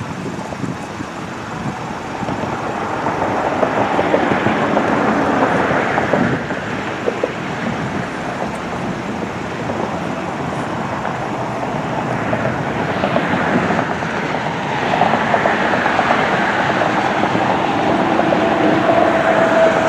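Jet airliner's engines passing low nearby: a loud, broad rushing noise that swells twice, with a steady tone near the end that slowly drops in pitch.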